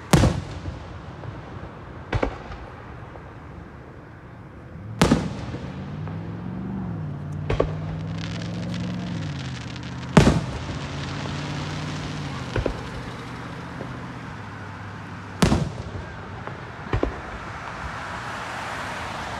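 Aerial fireworks shells bursting overhead: about eight sharp booms a few seconds apart, the loudest about ten seconds in. A low steady drone runs under the booms in the middle of the stretch.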